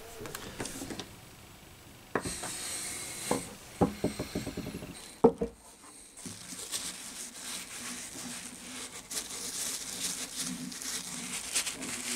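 A screwdriver tightens the brass nut on a wooden plane knob with small clicks and knocks, and there is a sharp knock about five seconds in. Then a paper towel rubs mineral oil onto the wooden knob with a steady soft rustling.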